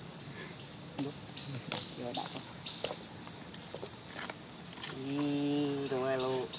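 Insects chirring steadily on one high pitch, with short repeated chirps over it. About five seconds in, a low drawn-out voice is held for over a second and rises at its end.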